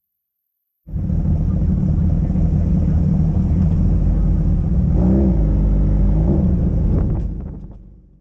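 Drag-racing engines run at full throttle down the strip: a loud, low rumble that cuts in abruptly about a second in, with a few rising and falling pitch sweeps midway, then fades away near the end.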